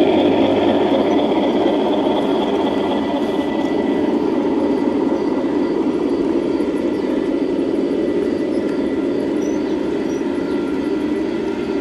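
Large-scale model passenger train running on an outdoor garden railway track: a steady rolling rumble of wheels on the rails, slowly growing quieter.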